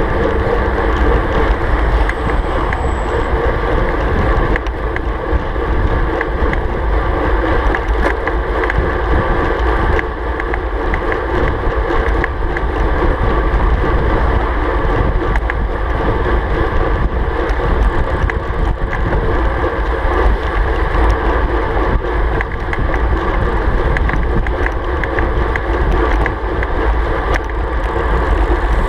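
Steady wind buffeting a handlebar-mounted camera microphone on a road bike riding at about 35 to 43 km/h, with deep rumble and tyre and road noise. An oncoming truck's engine fades out in the first second.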